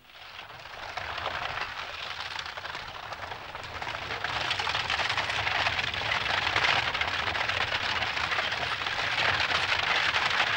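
Horse-drawn coach rolling along a gravel track, a steady crunching and rattling of wheels on stones that grows louder as it comes closer.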